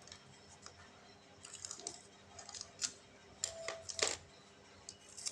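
Faint scattered clicks and light taps of small phone parts being handled and pressed into place during a smartphone LCD screen replacement, the loudest a little past the middle.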